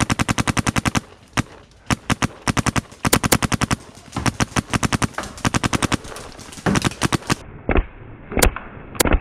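Paintball marker, a Planet Eclipse Gtek 160R, firing rapid strings of shots at more than ten a second in several bursts, then a few single shots near the end.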